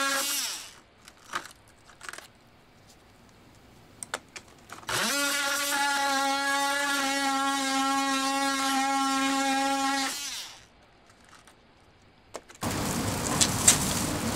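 Oscillating multi-tool cutting into the edge of a fiberglass-skinned honeycomb panel, running with a steady buzz. It stops just after the start, starts again about five seconds in, runs for about five seconds and winds down. Near the end a dense hiss with a few sharp clicks takes over.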